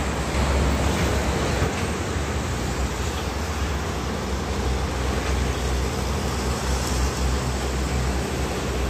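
Steady highway traffic noise from heavy diesel trucks and cars passing on a multi-lane road, mostly tyre and engine noise with a strong deep low end.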